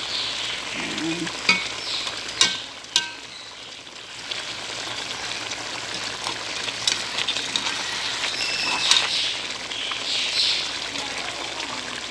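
Fried fish and potato slices sizzling in a pot over a gas burner, with a slotted spoon stirring them and knocking against the pot a few times.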